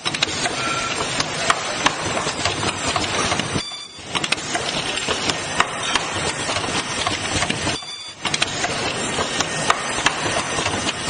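Mask ear-loop cutting and welding machine running: a dense mechanical clatter of many small clicks, dropping out briefly about every four seconds.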